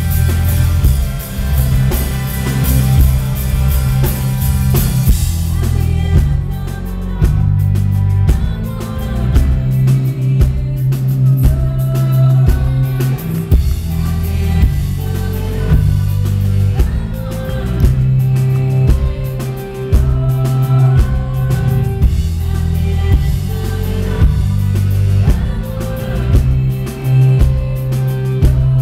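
Live rock band playing with drum kit and keyboard and a woman singing, heard from the audience. Crashing cymbals fill the first six seconds, then the band drops back to a sparser beat.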